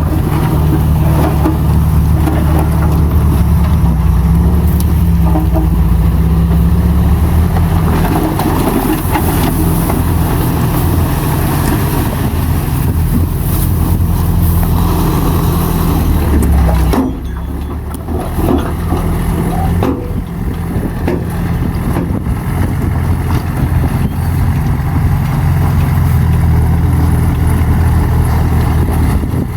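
Heavy diesel machinery engine running steadily under load, dropping off suddenly about two-thirds of the way through and then picking up again.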